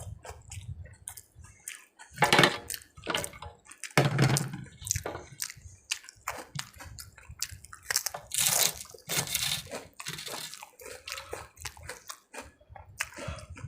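Close-miked eating of rice and curry: wet chewing and mouth smacks in a quick run of small clicks, with louder bursts about two and four seconds in and again around eight to ten seconds.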